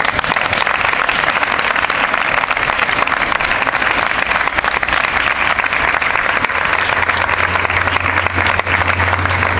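A crowd applauding: dense, steady clapping from many hands. A low steady hum joins about seven seconds in.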